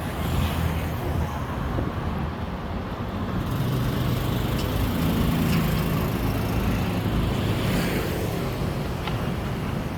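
City street traffic: vehicles running past on the road, with one engine's low drone swelling near the middle and then easing off.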